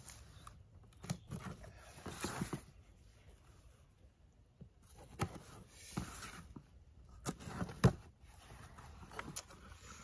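Buck pocket knife slitting the tape on a cardboard shipping box: short scraping strokes and rustles of cardboard with a few sharp clicks and knocks, the sharpest late on.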